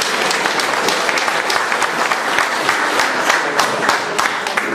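Audience applauding, many hands clapping at once, dying away just after the end.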